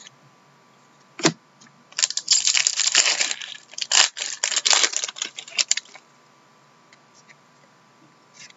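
A trading-card pack's foil wrapper being torn open and crinkled in the hands. One sharp click about a second in, then about four seconds of dense crackling rustle that stops suddenly, leaving only a few faint ticks of cards being handled.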